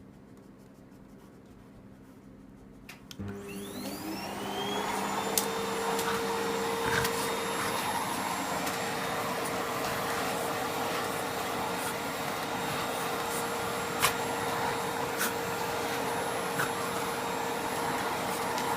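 Vacuum cleaner switched on about three seconds in, its motor whine rising and settling into a steady run with a constant rush of airflow. A few short knocks sound over it.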